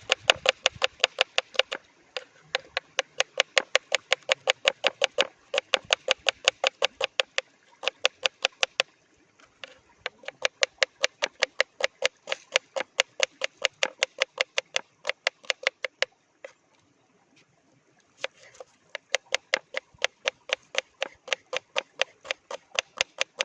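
Knife chopping onions on a cutting board: quick, even strokes, about four or five a second, in three runs with short pauses between them.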